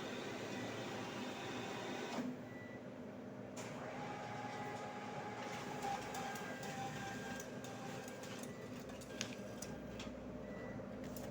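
Cash-deposit ATM's internal mechanism whirring steadily, with a few short clicks, as it handles the transaction.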